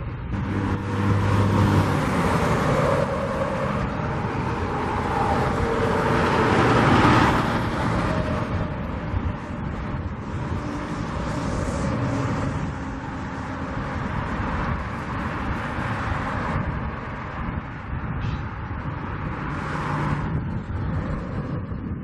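Motor vehicle engines running as a steady low rumble, swelling twice, about two and about six seconds in, as vehicles pass.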